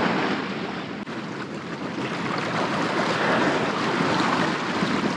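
Wind buffeting the microphone over the rush of sea water along a sailing boat's hull: a steady noise, with a brief drop about a second in.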